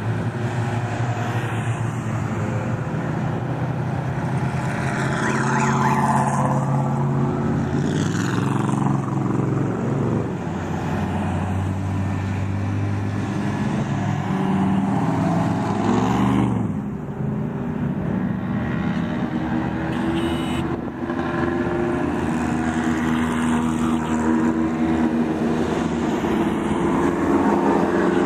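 Engines of off-road race trucks and buggies running as one vehicle after another drives past at low speed, with one engine briefly revving about halfway through.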